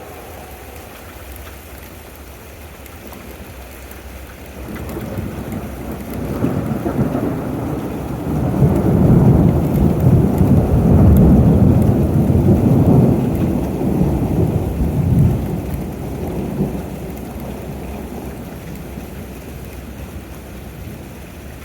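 Rolling thunder over steady rain: a deep rumble builds a few seconds in, is loudest in the middle, then dies away, while the rain hisses throughout.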